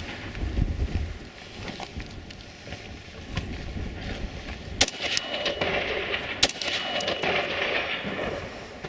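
Two rifle shots about a second and a half apart, nearly five and six and a half seconds in, with wind buffeting the microphone before them.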